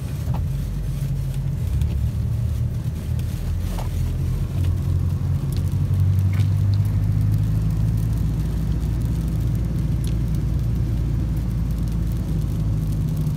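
Engine and road noise heard inside the cab of a 1991 Volkswagen truck camper driving on a wet road: a steady low rumble.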